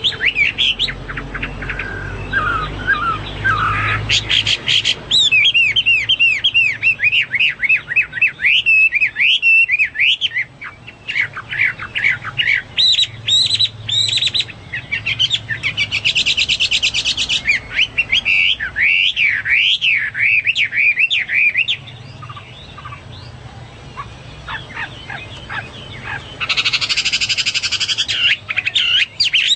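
Chinese hwamei singing loudly and continuously: a rapid, varied run of whistled phrases. It breaks into harsh, buzzy chattering about halfway through and again near the end.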